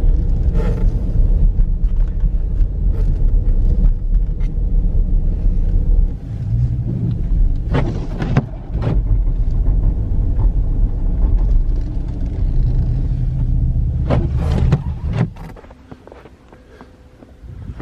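Dodge Durango R/T's 5.7-litre Hemi V8 running at low speed with a steady deep rumble, driving through snow, with a few sharp knocks about eight and fourteen seconds in. About fifteen seconds in the rumble drops away, leaving a much quieter background.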